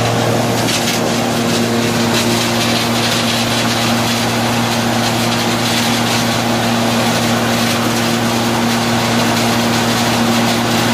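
Belt-driven wood sawdust machine running at speed: a loud, steady hum and whir.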